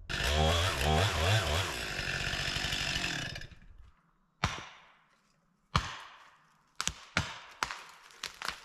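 Chainsaw running hard for about three and a half seconds, then it stops; a scattering of separate sharp knocks and snaps follows, closer together near the end.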